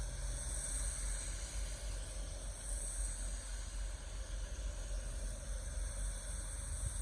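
Steady wind noise in a snowstorm: an even hiss with a low rumble underneath.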